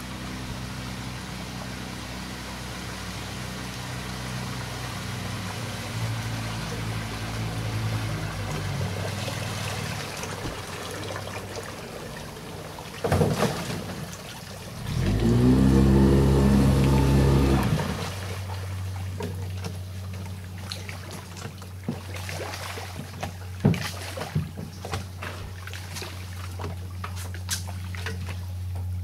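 Small outboard motor running steadily on a fishing boat, rising to a much louder run for about three seconds midway and then settling back to a steady low idle. There is a sharp knock just before the loud stretch, and scattered metallic clicks and knocks in the last several seconds.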